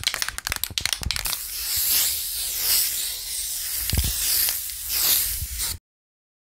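Spray-paint sound effect for an animated graffiti logo: a quick run of sharp clicks, then a long aerosol hiss with a low thud about four seconds in, cutting off abruptly to dead silence near the end.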